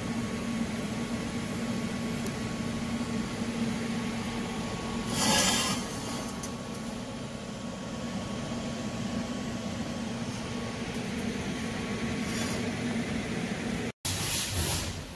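TIG welder working on stainless steel exhaust tubing: a steady electrical hum and hiss with a brief louder rasp about five seconds in. Near the end it breaks off abruptly and gives way to a louder, rougher noise.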